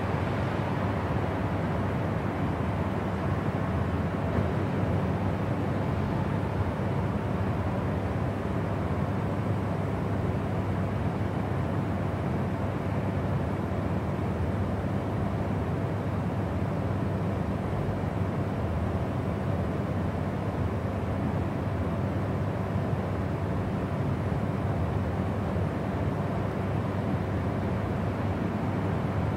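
Steady low rumble of jet airliner cabin noise at cruise: engine and airflow noise heard inside the cabin, unchanging throughout.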